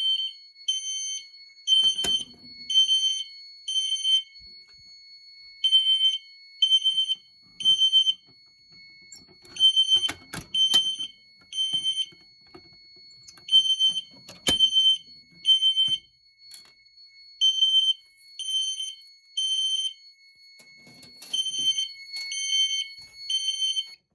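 System Sensor fire alarm horn strobes sounding the temporal-three evacuation signal: three short, high horn beeps, a pause, then three more, repeating. A faint steady high tone runs underneath, and a few sharp clicks come through.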